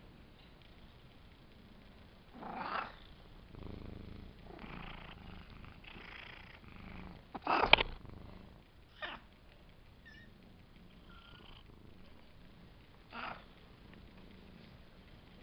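Five-week-old Savannah kittens purring and scuffling at play, with a few short rustles. The loudest sound, about halfway through, is a bump and rustle as a kitten pushes its face against the camera.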